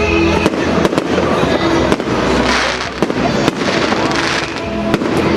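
Fireworks display: several sharp bangs of exploding shells, with two longer crackling, hissing bursts in the middle, over background music.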